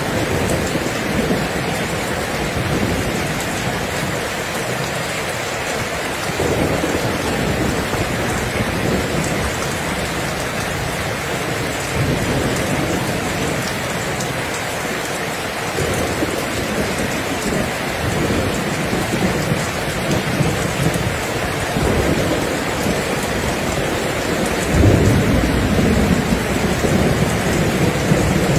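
Steady, heavy rain hissing on surfaces, with low thunder rumbling in and out several times; the loudest roll comes near the end.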